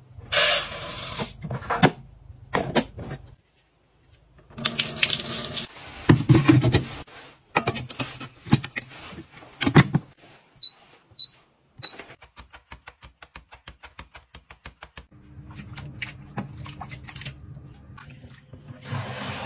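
Water splashing and sloshing in a bowl with clicks and knocks of handling, then three short electronic beeps about halfway through, followed by rapid ticking and a steady low hum of a small appliance motor.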